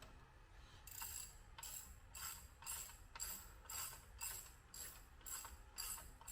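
Ratchet wrench being worked back and forth to run in a bolt on a tractor engine. The pawl clicks in a short burst on each return stroke, about two strokes a second, starting about a second in.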